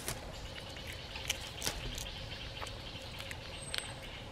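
Scattered sharp clicks and soft rustles close to the microphone, over a steady faint insect-like drone, with one short high chirp near the end.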